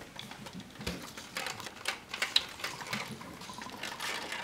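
Water drops of a Kelvin's thunderstorm (Kelvin water dropper) falling through foil rings into pie dishes, making a rapid, irregular pattering and ticking.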